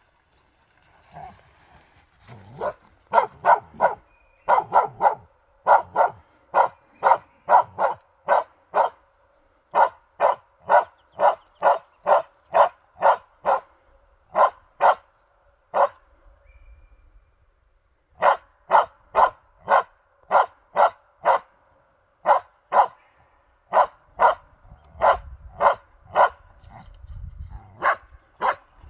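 Karelian bear dog barking steadily at a moose dummy, about two barks a second, stopping for a couple of seconds midway and then starting again.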